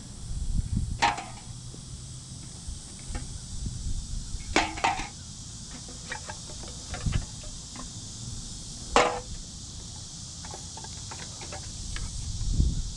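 Aluminium beer cans being handled, clinking sharply about three times with a brief metallic ring, over a steady high drone of insects.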